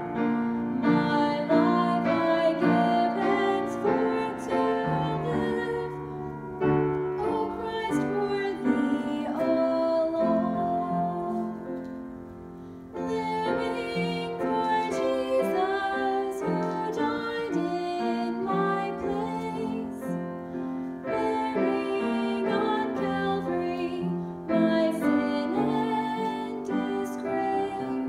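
Hymn music led by piano, with a singing voice over it; it drops to a quieter passage about twelve seconds in.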